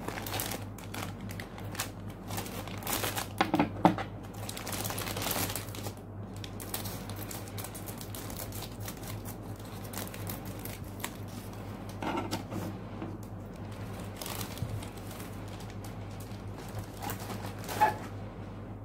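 Clear plastic bags crinkling and rustling as plastic model-kit runners are handled and cut out of them with scissors, louder in a few short flurries, over a steady low hum.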